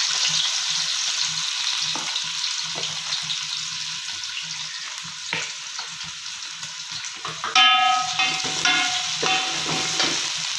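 Freshly added sliced onions frying in hot oil in an aluminium pot, a steady sizzle that eases a little. From about three-quarters of the way through, a metal spatula stirs them, knocking and scraping against the pot so that it rings briefly with each stroke.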